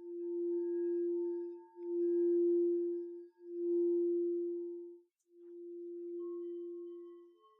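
Crystal singing bowls sounding a sustained pure note that swells and fades in waves about every second and a half. Near the end, a different, slightly higher note begins alongside a second tone.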